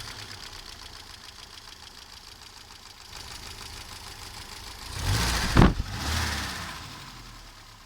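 Mercedes-Benz 190E (W201) engine idling steadily, then revved briefly twice about five seconds in and settling back toward idle. The owner is listening for a clatter he suspects in the camshaft, valves or timing chain.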